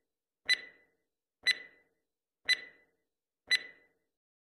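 Countdown timer sound effect: a short, sharp tick with a brief ring, once a second, four times.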